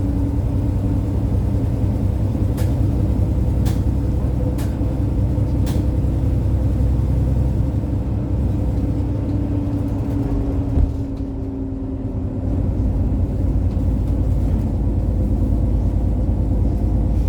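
Steady low rumble of a road vehicle's engine and tyres while driving, with four sharp clicks about a second apart a few seconds in.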